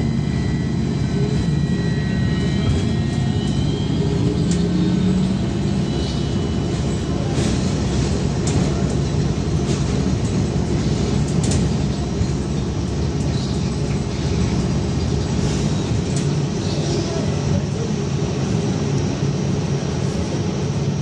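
Inside a VMZ-5298.01 trolleybus under way: its electric traction drive whines upward in pitch over the first few seconds as it pulls away, over a steady rumble of the running bus, with scattered rattles and knocks.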